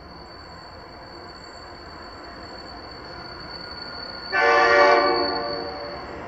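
Diesel locomotive's air horn sounding one blast of about a second, several notes at once, fading away over the next second or so, over the low rumble of the approaching train growing louder.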